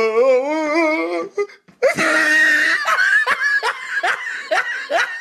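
A person laughing hard: a long wavering drawn-out sound, then a loud shrieking laugh about two seconds in, and a run of quick laughs about three a second.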